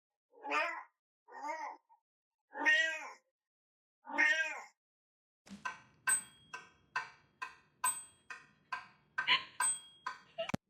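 A cat meowing four times, separate meows spread over the first few seconds. From about halfway through comes a run of about a dozen short, sharp calls, evenly spaced at roughly two a second.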